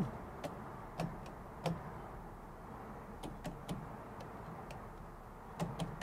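Rocker-style three-way wall switches being flipped back and forth, giving about half a dozen faint, sharp clicks at irregular intervals as the light is switched off and on to test the circuit.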